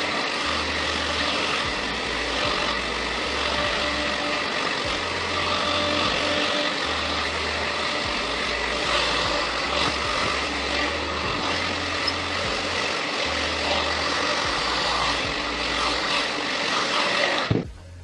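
Handheld hair dryer running steadily, a continuous blowing hiss as it dries curly hair at the roots; it is switched off and cuts out suddenly near the end.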